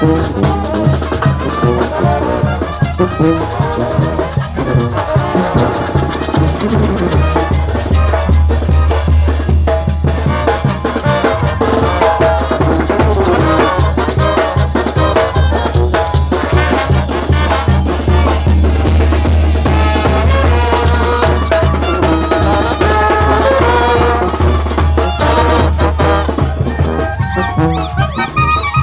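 Oaxacan brass band (banda) playing live in a street procession: trumpets and other brass over a steady drum beat and a heavy, continuous bass line.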